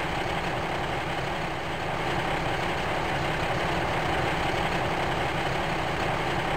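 Steady idling truck-engine sound, an even rumble, accompanying an H0-scale model tipper truck as it tips its load.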